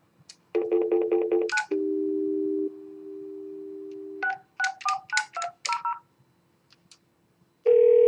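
Telephone line sounds: a rapidly pulsing dial tone, then a steady dial tone, then about eight quick touch-tone keypad beeps as a number is dialled. Near the end the ringback tone starts as the call rings through.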